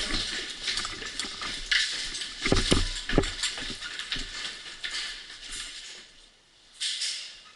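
Footsteps and the rustle of clothing and gear: irregular thumps and scuffs that thin out and fade after about five seconds, then a short rustle near the end.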